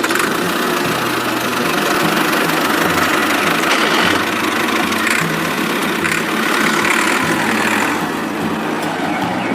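Small motor of a homemade miniature tractor running steadily, with a continuous mechanical rattle.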